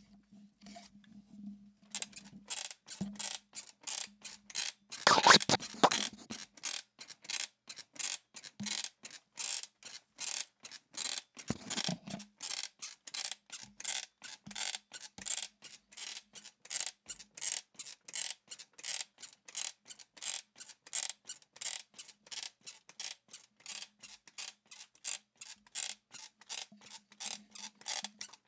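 Bed-creaking sound effect: a bed squeaking in a steady rhythm, about two to three creaks a second, with a louder, longer creak about five seconds in.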